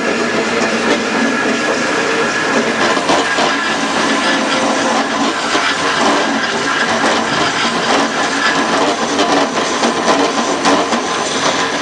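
A bowl blank being cut on a VB36 bowl-turning lathe, the tool shearing the spinning wood with a steady, loud hiss and dense fast ticking.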